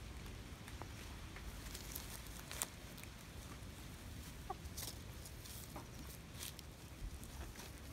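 Brown laying hens making a few faint clucks, with scattered light rustles and clicks as they shift about, over a low steady rumble.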